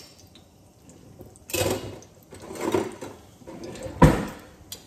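A kitchen drawer opened and metal utensils rattled in it, then the drawer shut with a thump about four seconds in.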